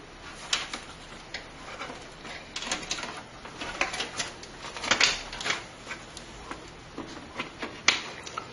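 Irregular clicks, taps and rustling of cables and small plastic connectors being handled inside a desktop computer case.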